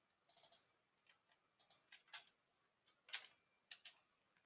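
Computer keyboard typing: faint, light key clicks in short, irregular runs.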